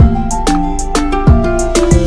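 Background music: plucked-string instrumental with a steady beat.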